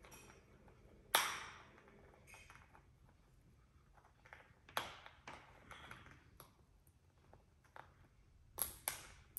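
Blue-and-gold macaw cracking a walnut with its beak on a hard tabletop: scattered sharp cracks and clicks, the loudest about a second in, another around five seconds, and two close together near the end.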